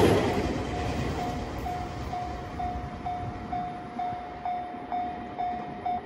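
Railway level-crossing warning bell ringing in a steady ding-ding about twice a second, then stopping as the crossing clears. Under it, the running noise of the departing 413-series electric train fades away.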